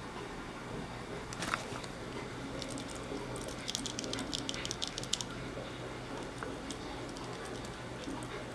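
A dachshund nosing and mouthing a small rubber toy on a wooden floor, its claws and mouth making light clicks: a couple about a second and a half in, then a quick run of clicks for two or three seconds. A faint steady hum sits underneath.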